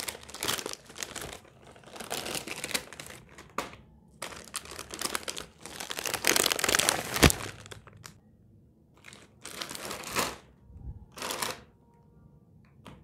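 Foil-lined plastic snack packets crinkling as they are handled and laid down, in several bursts of crackling with short pauses between them. One sharp knock stands out about seven seconds in.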